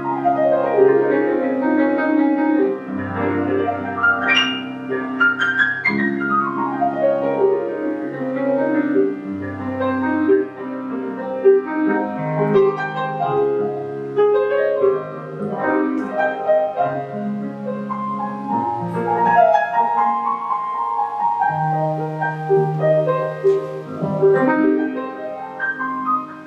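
Solo grand piano playing a slow, flowing piece: held chords over a low bass line, with quick sweeping runs of notes near the start and again about six seconds in.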